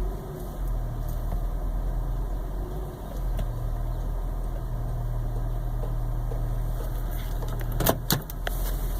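2006 Honda Odyssey's V6 engine running, heard from inside the cabin as a steady low hum. A few sharp clicks and knocks come near the end.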